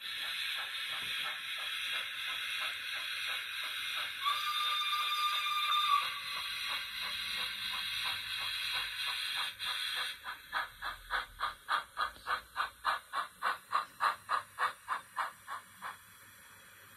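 Rapido Hunslet 16-inch 0-6-0 saddle tank model locomotive's DCC sound decoder playing steam-engine sounds as it runs. Quiet chuffs sound under a loud hiss of steam, with a brief steady tone about four seconds in. Then the hiss stops and clear, evenly spaced chuffs follow at about three a second, ending about sixteen seconds in.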